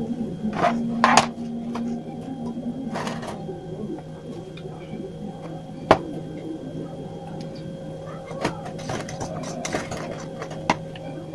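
Scattered clicks and knocks of hands handling a plastic glue tube and a small tin can with a metal spatula while mixing melted glue, loudest about a second in and at about six seconds, with a run of small scrapes and taps in the can near the end. A steady low hum runs underneath.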